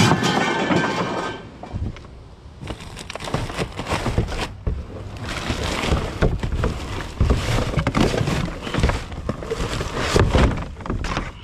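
A sharp metal clang with brief ringing right at the start, then a black plastic trash bag rustling and crackling in irregular stretches as hands dig through it and pull an electric string trimmer out of a trash cart.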